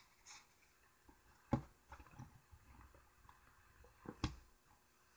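Quiet handling of a plastic solderless breadboard and pin header by hand: a few light clicks and taps, with two sharper knocks, one about a second and a half in and one near the end.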